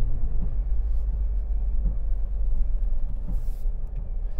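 Low, steady rumble of Suzuki Jimnys driving off at low speed: engine and road noise.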